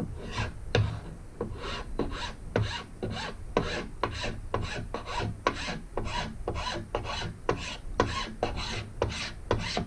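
Single-cut file pushed along freshly glued wood edge banding to trim it flush with the plywood: a steady run of short rasping strokes, about three a second.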